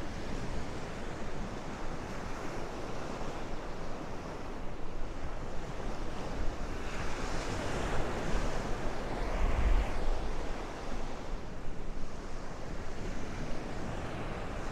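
Gulf surf breaking and washing up the sand, with wind buffeting the microphone. A wave's wash builds and hisses a little past halfway, and a gust thumps the mic just after it.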